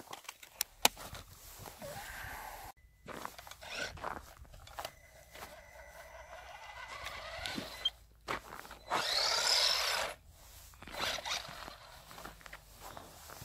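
Electric RC off-road buggy driving through deep snow: tyres crunching and scraping with scattered clicks, and its motor whining up and back down in a loud burst about nine seconds in as it struggles for grip.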